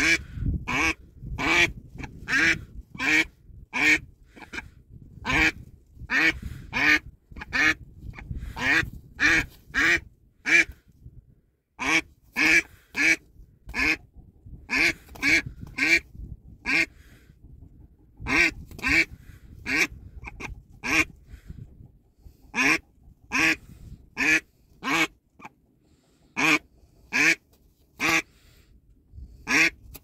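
Domestic duck quacking over and over in loud, quick runs of quacks with short pauses between the runs.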